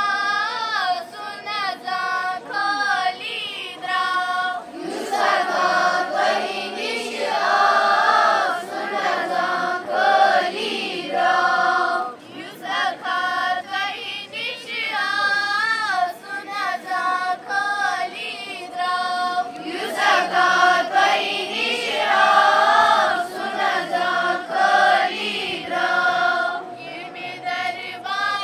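A group of children singing together in unison, holding long, wavering notes with short breaks between lines.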